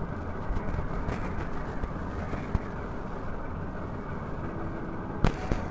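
Steady low background rumble with a few faint small clicks and one sharper click near the end.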